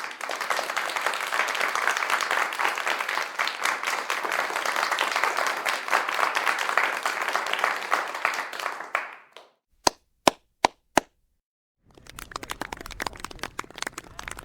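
Crowd applause, many hands clapping densely, which fades out about nine seconds in. Four single sharp hand claps follow. After a short gap, clapping starts again at a lower level, sparser, with the separate claps distinct over a low rumble.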